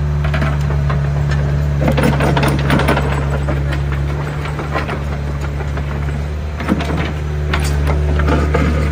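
Doosan DX60-9C mini excavator's diesel engine running steadily, with scattered metallic knocks and rattles. The engine note drops and changes for a couple of seconds around the middle.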